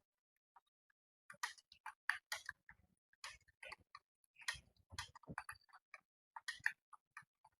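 Typing on a computer keyboard: quick, irregular key clicks, faint, starting about a second and a half in after a short pause.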